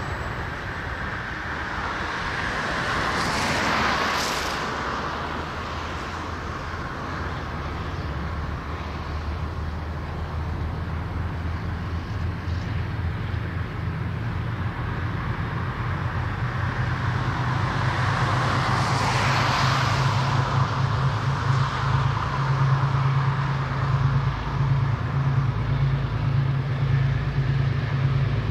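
Diesel-electric locomotive engine working under power, a low steady throb that grows louder toward the end as it draws nearer. Two rushing swells pass over it, about four seconds in and again about twenty seconds in.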